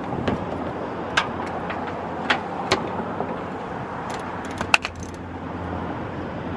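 Sharp metallic clicks and clinks from a socket wrench on a long extension with a 10 mm long-reach socket being fitted onto and worked on a bolt. The clicks come singly about a second apart, then several in quick succession near five seconds, over a steady low background rumble.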